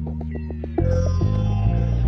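Background music: an instrumental track with held low bass notes that change and get louder a little under a second in, over a steady rhythmic pulse.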